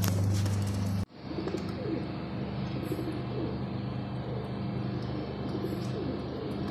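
Many domestic pigeons cooing together in shipping crates, a dense chorus of overlapping coos. A steady low hum in the first second cuts off abruptly.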